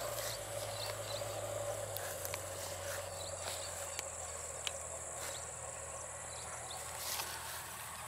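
Steady high-pitched insect chirring, likely crickets in the grass, with a few faint clicks scattered through it.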